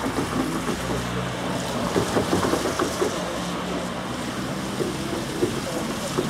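Steam-hauled train running past: a steady rushing noise with short irregular knocks of the wheels and carriages on the rails.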